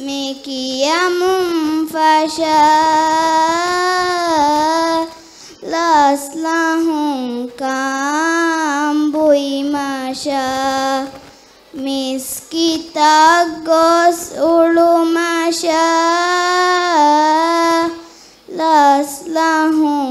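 A girl singing solo into a microphone, a slow Maldivian raivaru chant in long held, wavering notes. She sings phrase by phrase, with short breaks for breath between.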